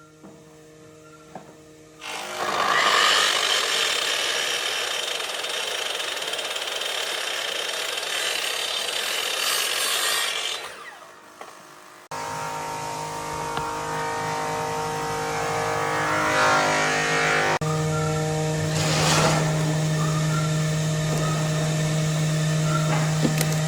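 Electric power tool cutting wood. A long noisy cut runs for about eight seconds, and after a short break the motor runs with a steady hum while it bites into the wood in short bursts.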